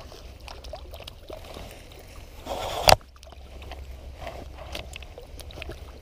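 Low rumble and handling noise from a body-worn camera on the move, with scattered small clicks. About three seconds in, a brief rustle ends in one sharp knock, the loudest sound.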